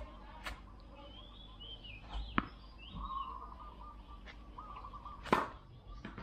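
A tennis ball bounces sharply on concrete about two and a half seconds in. A little past five seconds comes the louder swish and pop of a racket striking the ball on a serve. Birds chirp throughout.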